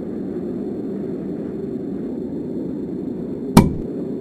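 A steady low rumbling drone, with a single loud, sharp bang about three and a half seconds in.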